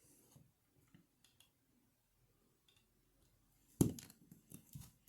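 Near silence, then about four seconds in a sharp click followed by a few lighter clicks of plastic LEGO bricks being handled and pressed together.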